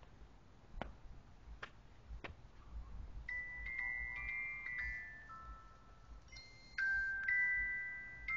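Cell phone ringtone: a melody of bell-like, glockenspiel-style notes that starts about three seconds in and gets louder near the end. Three sharp clicks come before it.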